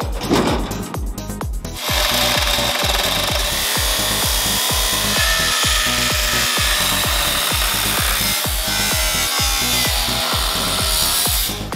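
Makita angle grinder with a cutting disc slicing through rusty sheet steel, a steady whine and hiss that starts about two seconds in and stops just before the end. Background music with a steady beat runs underneath.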